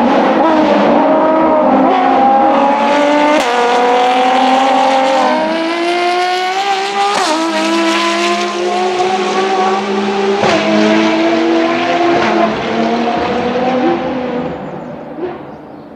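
Ferrari race car engine accelerating hard, its pitch climbing and dropping sharply with three quick upshifts, then fading away near the end as the car pulls off.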